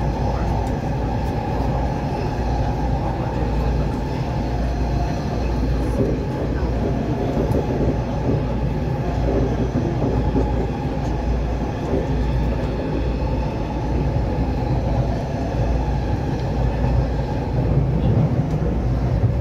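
Taipei Metro C381 steel-wheel metro train running between stations, heard from inside a crowded car: a steady running rumble of wheels on rail with no breaks or changes.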